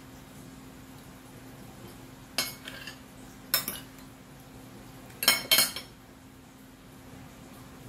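Metal fork and spoon clinking against a ceramic dinner plate: sharp clinks in three clusters, about two and a half, three and a half and five and a half seconds in, the last pair the loudest.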